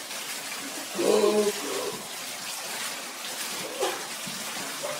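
Water running from a bathtub spout and splashing into the tub and onto a cat, the tap turned on by the cat's paw on the faucet lever. A short vocal sound comes about a second in.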